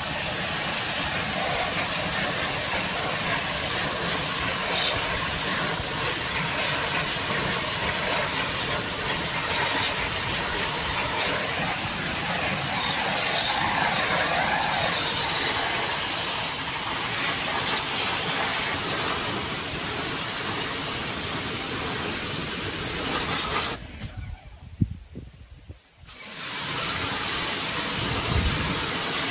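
Westinghouse ePX3500 electric pressure washer spraying: a steady loud hiss of water jet and pump. It cuts off for about two seconds near the end, with a couple of knocks in the gap, then starts again.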